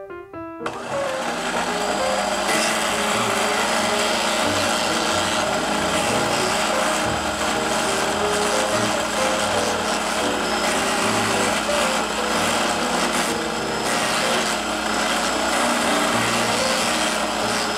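Electric Negi-hei Junior green onion slicer running and chopping green onion stalks into rings: a steady motor whir under a dense, fast chopping rasp that starts abruptly about a second in.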